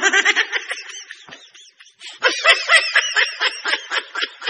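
A comedy laughing sound effect dubbed over the picture: rapid high-pitched pulses in two runs, the second starting about two seconds in and lasting longer.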